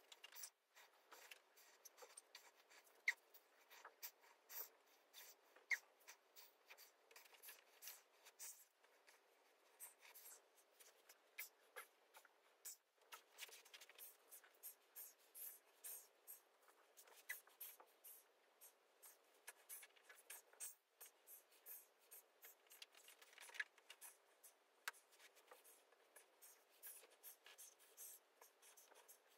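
Near silence, with faint irregular scratching, rustling and small clicks of bodies shifting on a yoga mat.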